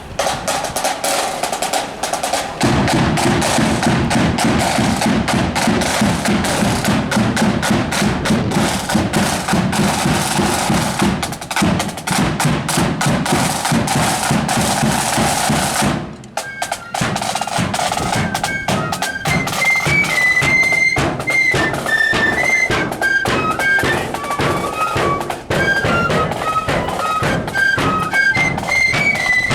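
Marching flute band: snare drums play a rolling, rattling intro, and a bass drum joins after about two and a half seconds. After a brief break a little past halfway, the flutes take up a high melody over the drum beat.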